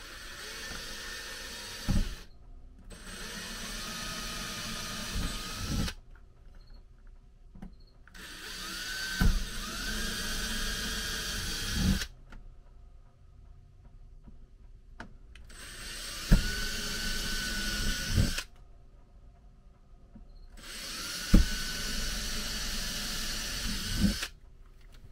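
Cordless drill boring pilot holes into the wooden TV backer in an RV ceiling, in five separate runs of a few seconds each with pauses between. The whine rises as the drill spins up, and several runs carry a sharp knock.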